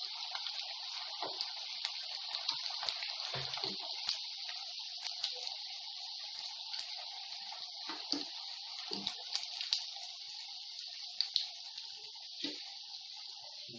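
Hot oil sizzling steadily in a kadhai as rice cutlets deep-fry, with small crackles. A few soft knocks come from a slotted spatula against the pan as the cutlets are lifted out.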